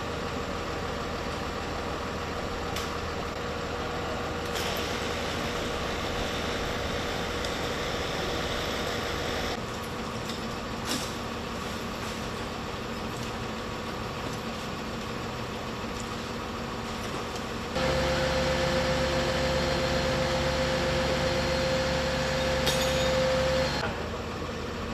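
Fire truck engine running steadily with a constant hum while its aerial ladder is in use, over background city noise. The hum gets louder for several seconds near the end.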